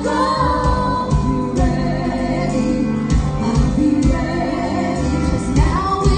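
Live band music with guitars and a lead vocalist singing into a microphone, played loud through a hall's sound system.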